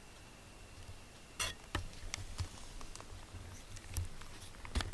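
A cat purring low, close to the microphone, with scattered rustles and sharp clicks of movement. The loudest rustles come about a second and a half in and again near the end.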